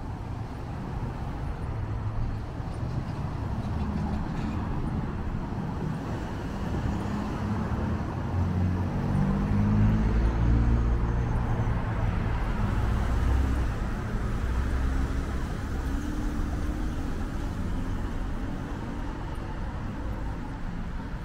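Road traffic at a signalled intersection: car and truck engines running and pulling away, their pitch rising, over a steady hiss of tyres. Loudest about ten seconds in as vehicles pass close.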